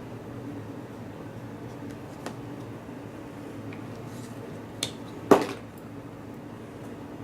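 Small hard objects being handled on a bench: a few light clicks and one sharper tap about five seconds in, over a steady low hum.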